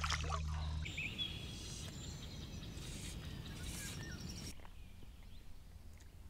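Riverside outdoor ambience: a steady background hiss with a few scattered bird chirps and whistles, dropping to a quieter level about four and a half seconds in.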